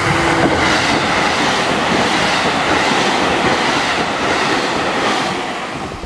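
JR Tokaido Line electric train passing close by at a level crossing: a loud rush and clatter of steel wheels on the rails, fading as the train moves away near the end.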